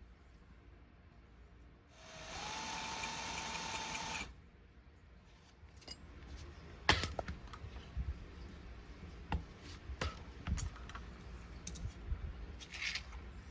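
A small power drill runs for about two seconds, spinning up to a steady whine and then stopping, followed by scattered clicks and knocks.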